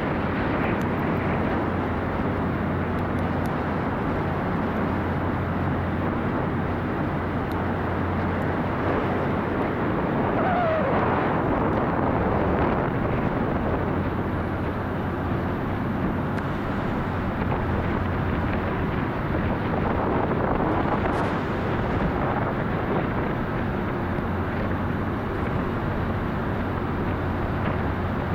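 Passenger ferry running at speed across open sea: a steady low engine drone under the rushing of its churning wake.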